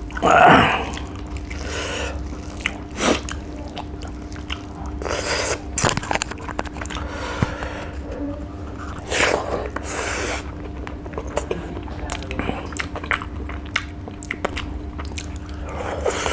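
Close-up mouth sounds of a person eating rice and fish by hand: wet chewing and lip-smacking with many short clicks, a few louder smacks scattered through, over a faint steady hum.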